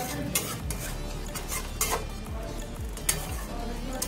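Metal spatula scraping and knocking against a metal kadai as a thick fish curry is stirred, several sharp strokes spaced irregularly about a second apart.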